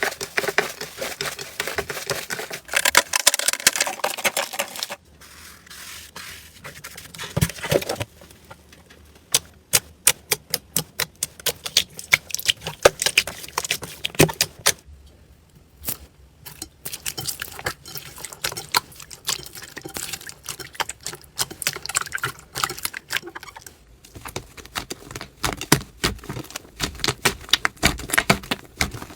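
Slime being squeezed and poked by hand, giving a dense run of sharp clicks and pops with stretches of crackling.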